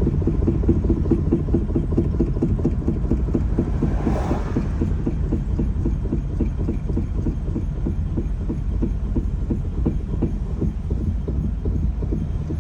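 Third-generation Honda Fit knocking rhythmically while coasting with throttle and brake released, a few evenly spaced thumps a second over low road rumble. The knock comes only on overrun, stops under braking, and comes with vibration in the steering wheel: the sign of a drivetrain or suspension fault that the owner is trying to trace.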